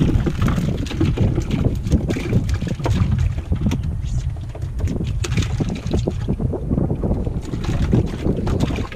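Wind buffeting the microphone in a continuous low rumble, with repeated knocks and rattles as a wire-mesh trap is handled on a boat deck.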